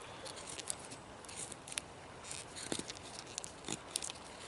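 Carbon-steel blade of a Condor Stratos knife cutting with short, irregular strokes: a string of quick, crisp scrapes and clicks, a few louder ones in the second half.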